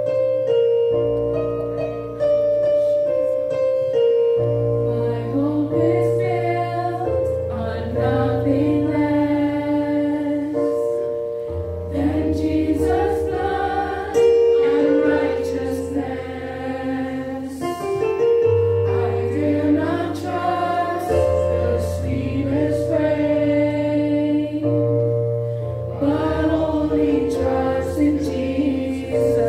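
A small group of young singers singing a slow worship song in unison into microphones, accompanied by an electric keyboard playing sustained chords and bass. The keyboard plays alone at first and the voices come in a few seconds in.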